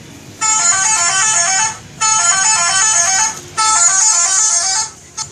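Bus's 'telolet' multi-tone musical horn playing its quick stepping tune three times, each burst a little over a second long with short gaps between.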